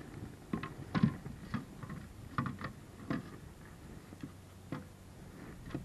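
Irregular light knocks and clicks from handling a freshly landed largemouth bass and gear aboard a plastic kayak, the loudest about a second in.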